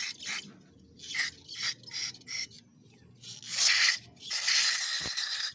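Aerosol parts cleaner hissing out of its spray straw onto an oil-caked idle air control valve: a few short squirts, then two longer, louder blasts in the second half. A faint knock comes near the end.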